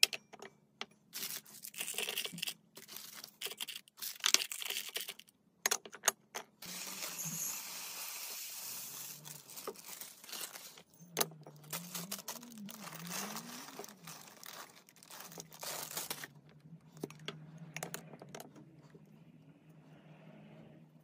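Glass storage jars clinking and knocking as they are set down and stacked on a counter, with dry candy and toppings poured into them. About a third of the way in there is a steady pouring hiss lasting a few seconds, like sprinkles running into a glass jar. Near the end comes the softer pour of cocoa powder.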